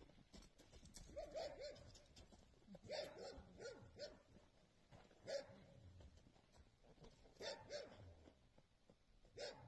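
A dog barking faintly: short single and paired barks every second or two.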